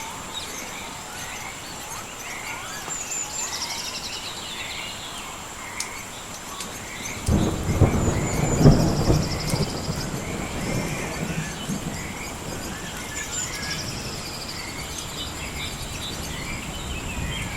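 A roll of thunder breaks in about seven seconds in, is loudest a second or so later, then rumbles away over several seconds. Birds keep chirping and trilling over a steady high hum, with a few faint crackles.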